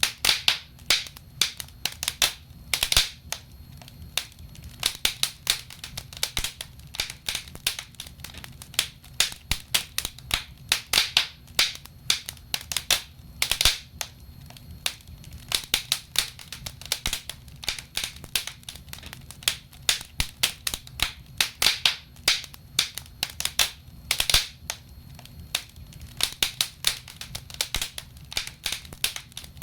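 Wood logs burning in a fireplace, crackling with frequent, irregular sharp pops and snaps, several a second at times.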